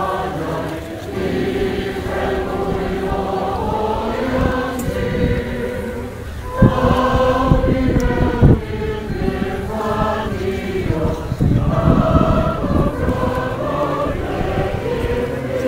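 A choir of many voices singing slowly outdoors, holding long notes. A couple of loud bumps on the microphone near the middle.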